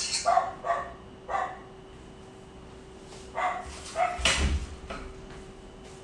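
Dog barking outside, heard through open doors and windows: a few barks in the first second and a half, then a quicker run of barks from about three to five seconds in, the loudest about four seconds in.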